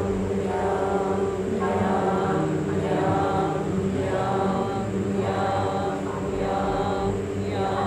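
A group of voices chanting the heart-chakra seed syllable "Yam" together as one long, held drone, the tone swelling and shifting again and again.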